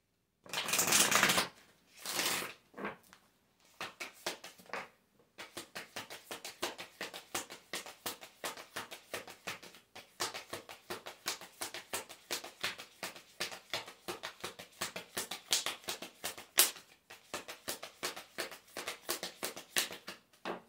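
A deck of oracle cards being shuffled by hand: two longer swishes in the first few seconds, then a fast, continuous patter of cards slipping and tapping against each other for most of the rest.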